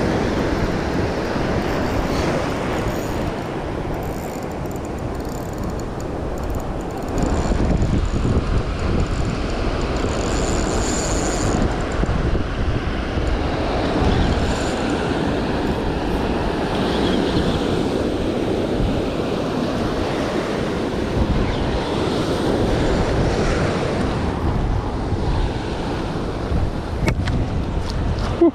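Surf washing against a seawall, with wind buffeting the microphone, a steady rush that swells a few seconds in. Near the end come a few short knocks as the landed trevally flaps on the concrete.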